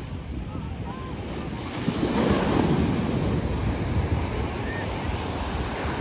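Small sea waves breaking and washing up a sandy beach, the surf swelling louder about two seconds in, with wind buffeting the microphone.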